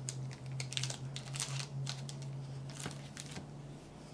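Clear plastic cookie wrappers crinkling in the hands, an irregular run of crackles that thins out near the end, over a steady low hum.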